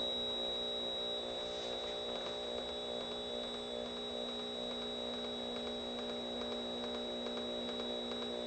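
Steady electronic hum drone from small amplifiers and electronics: a low hum with a cluster of higher held tones and a thin high whistle, with faint crackles coming in about two seconds in.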